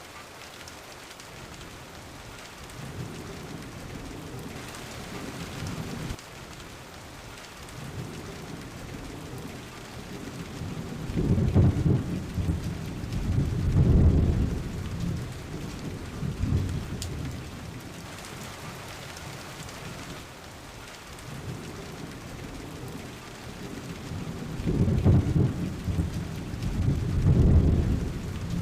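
Steady rain falling, with thunder rumbling low underneath. A faint roll comes a few seconds in, and two loud rolling peals swell and fade, one in the middle and one near the end.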